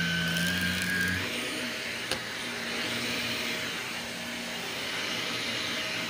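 Cordless stick vacuum running as its floor head is pushed over a rug, a steady rushing noise. A held pitched tone stops about a second in, and there is one sharp click about two seconds in.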